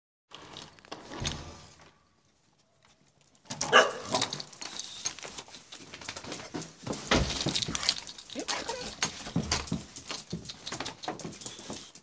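Several excited dogs greeting someone coming home: whimpering and yelping among a lot of scuffling and clicking. After a short hush, the commotion starts about three and a half seconds in and carries on.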